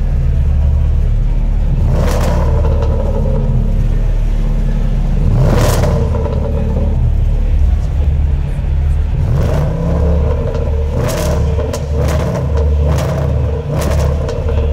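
Range Rover Sport SVR's supercharged 5.0-litre V8 revving repeatedly over a deep, steady rumble, with several sharp exhaust cracks.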